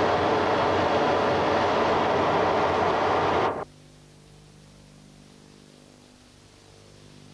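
Steady rush of engine and airflow noise on the flight deck of a Boeing E-3D Sentry. It cuts off suddenly about halfway through, leaving a faint steady hum.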